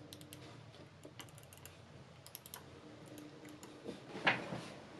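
Light clicks and ticks of small plastic parts and a mouse circuit board being handled and fitted together, with a quick run of ticks about halfway through and a louder tap about four seconds in.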